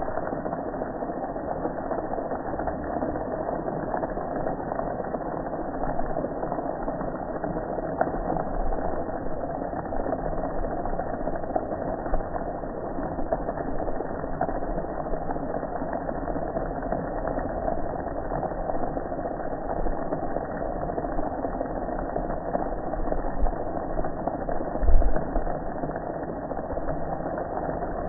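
Steady, even drone of a water jet spraying onto a gas grill, with one low thump near the end.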